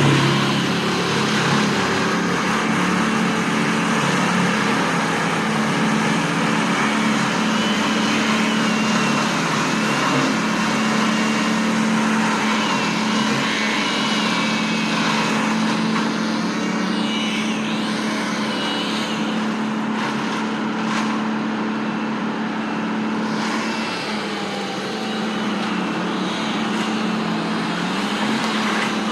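A large engine running steadily with a low, even hum, as of heavy equipment at the work site. Faint high wavering squeals come through in the middle.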